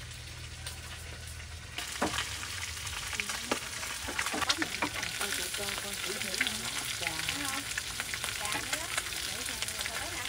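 Catfish frying in hot oil, a steady sizzle with frequent sharp pops and crackles. The sizzling comes in about two seconds in, after a low steady hum.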